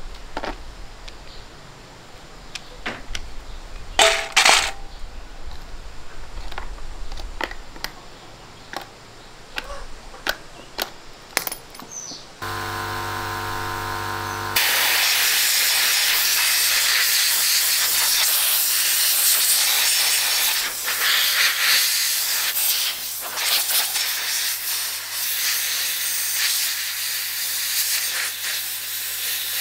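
Scattered small metallic clicks and knocks of parts and tools being handled, then a two-second buzz. About fifteen seconds in, a loud steady hiss of escaping air or spray starts and runs on.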